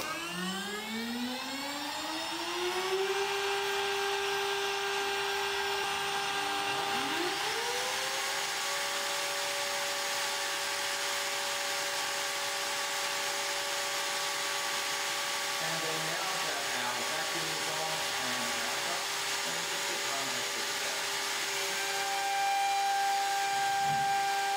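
CNC router spindle spinning up toward about 25,000 rpm: its whine rises in pitch over the first three seconds, then holds steady at full speed. About seven seconds in, a second motor starts and rises to its own steady, higher whine. Near the end a higher tone grows louder over the steady running.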